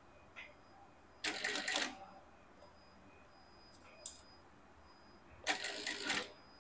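Industrial sewing machine stitching in two short stop-start runs of well under a second each, a few seconds apart, the way a seam is sewn slowly bit by bit. A couple of faint single clicks fall in the pauses.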